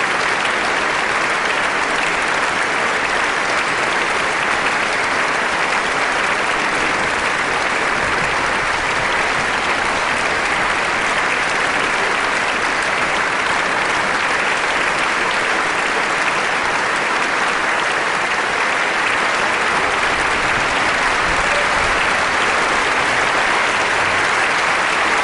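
Concert audience applauding steadily, an even, unbroken wash of clapping that neither builds nor fades.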